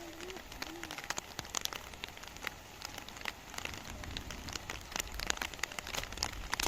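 Heavy rain falling, with a dense run of sharp drop hits close by over a steady hiss. A low rumble joins about four seconds in.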